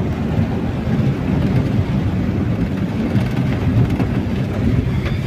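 Steady low rumble of a vehicle driving through deep floodwater, with churning, splashing water.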